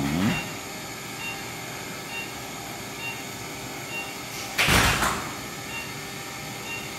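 Steady quiet room background with faint short high beeps recurring about once a second, broken by a single loud rustling swish lasting about half a second, about four and a half seconds in.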